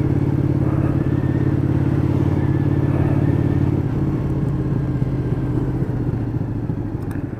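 Motorcycle engine running at steady revs while riding. Near the end it eases off into a looser, uneven throb.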